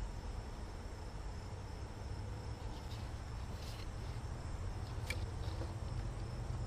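Outdoor ambience: a steady high insect drone over a low rumble, with a couple of faint clicks about halfway through and again about a second later.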